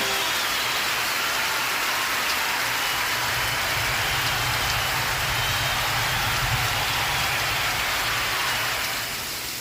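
Steady heavy rain falling, a dense even hiss, with a low rumble underneath in the middle; the hiss lightens just before the end.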